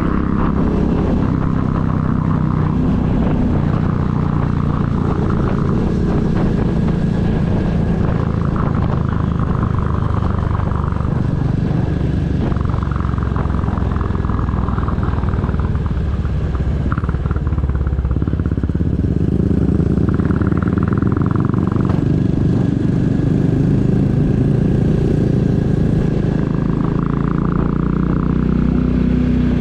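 2022 Royal Enfield Classic 350's single-cylinder engine running steadily on the road, a little louder about two-thirds of the way through.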